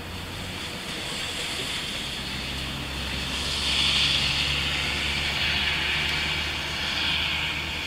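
A road vehicle passing: tyre hiss on a rain-wet road swells to its loudest about four seconds in and stays strong until near the end, over a steady low engine hum.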